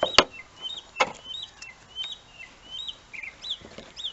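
Small birds chirping over and over, short hooked high notes several times a second. Two sharp knocks near the start, about a second apart, are the loudest sounds.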